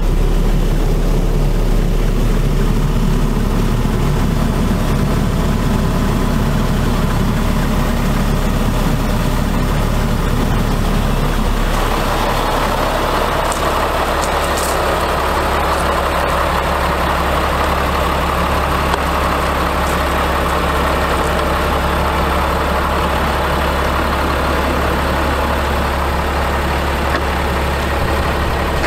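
Caterpillar C7 diesel engine of a Ford F750 truck idling steadily, heard first from inside the cab. About twelve seconds in its sound changes as it is heard from outside the truck.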